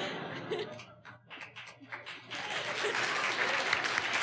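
Audience laughing, then breaking into applause a little over two seconds in.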